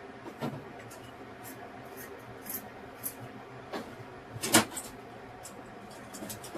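A few light knocks and clicks of things being handled, scattered through, the loudest about four and a half seconds in, over a faint steady hum.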